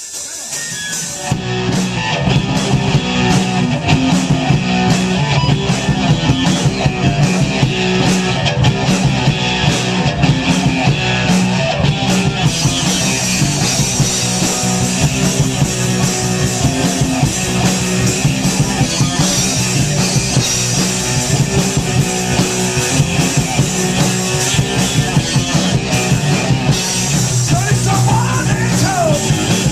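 Rock band playing live with electric guitar, bass guitar and drum kit: a loud, driving instrumental opening with no singing. About twelve seconds in, the cymbals come in and the band plays fuller.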